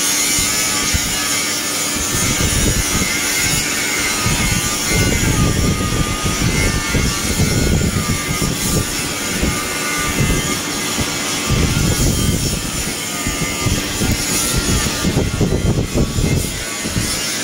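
Air blower feeding a coal forge: a loud, steady rushing drone as a knife blade is brought to heat in the coals for hardening.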